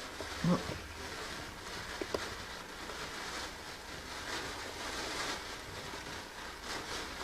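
Steady hiss and low hum of room tone, with a brief murmur about half a second in and a faint click about two seconds in.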